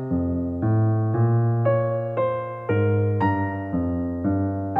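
Background music: a keyboard playing a gentle melody over chords and a bass line, a new note or chord about every half second.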